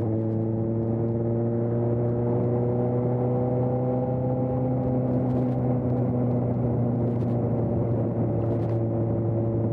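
2020 Suzuki GSX-S750's inline-four engine through a Storm aftermarket exhaust, running at steady cruising revs. The engine note holds nearly level, rising slightly and then easing down a little toward the end.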